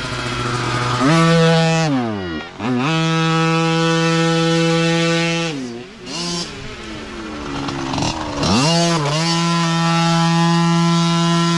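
Mini dirt bike engine revving high and steady, its pitch dropping sharply and climbing straight back three times as the rider comes off and back on the throttle.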